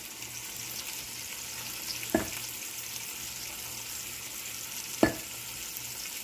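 Chicken pieces searing in oil in a pan on an electric stove over medium heat, a steady sizzle, with two sharp knocks about two and five seconds in.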